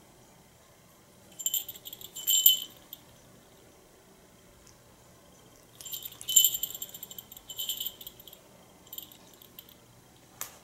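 Small bell on a cat's collar jingling in three short bursts as the cat rears up and paws at a toy, with one sharp knock near the end.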